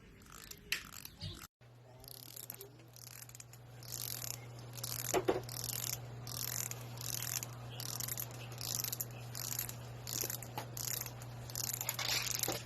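Teeth of a comb being strummed with a fingernail, a run of short, high, scratchy rasps repeated over and over. A steady low hum sits underneath from about a second and a half in.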